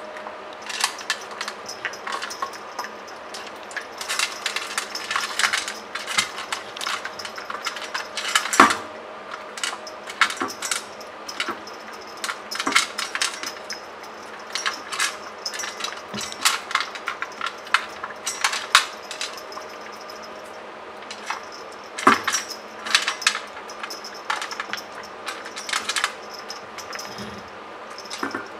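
A small dog eating dry kibble from a bowl: irregular crunching and clinking of kibble and teeth against the bowl, in bursts with a couple of short pauses.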